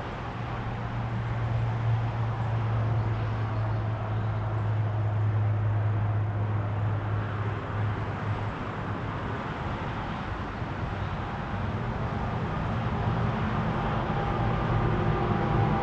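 Road traffic passing: a continuous rush of tyre and engine noise. A steady low engine hum stops about eight seconds in, and near the end further engine hums and faint higher tones come in.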